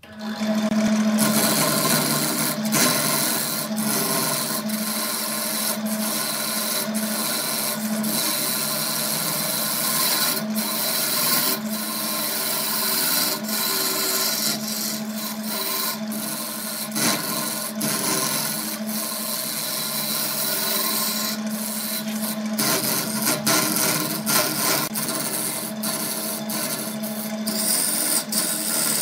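A wood lathe switched on and running with a steady motor hum, while a hand-held gouge cuts a segmented glued-up wood blank: continuous rough scraping with frequent irregular sharp ticks as the shavings fly.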